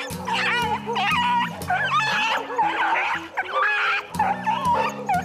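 A stray dog caught in a catcher's net crying out in distress, repeated high, wavering yelps and whines, over background music with held low notes.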